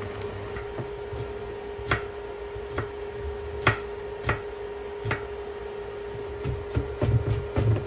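Chef's knife slicing garlic cloves on a wooden cutting board. The blade knocks on the board about once a second, then in a quicker run of cuts near the end, over a steady hum.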